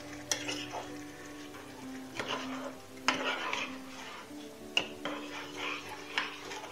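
A spoon stirring chicken pieces in thick tomato sauce in a pan, scraping along the pan several times.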